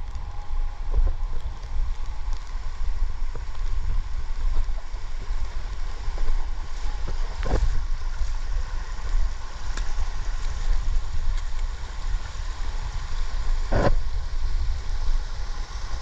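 Wind rumbling on the microphone over the steady rush of a shallow stream running across rock, with two short knocks, one about halfway through and one near the end.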